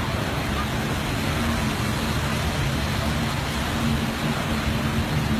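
A motor vehicle's engine running with a steady hum under a continuous rushing wash of noise, typical of traffic or water.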